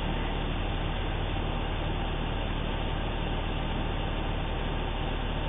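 Pickup truck engine idling with the air conditioning running, heard from inside the cab as a steady low hum under an even hiss.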